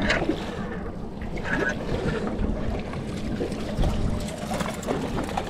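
Wind buffeting the microphone as a steady low rumble, with a few faint short knocks.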